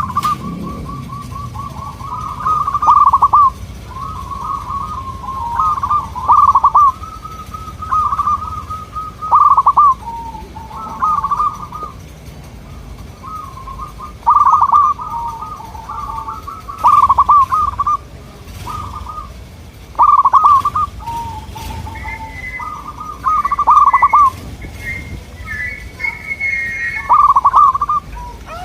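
Zebra doves (perkutut) cooing: about a dozen loud, quick trilled coo phrases, some overlapping as birds answer one another. In the last third a higher-pitched call joins in.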